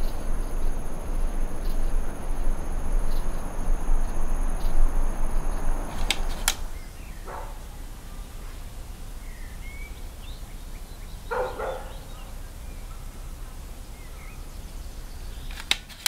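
Outdoor ambience: a steady rushing noise with a faint high whine, which cuts off with a click about six seconds in. After that the air is quieter, with a few short bird chirps and calls.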